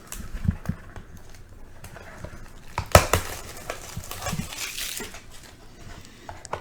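Trading cards and their packaging being handled: a few soft taps, a sharp click about three seconds in, then crinkling rustle.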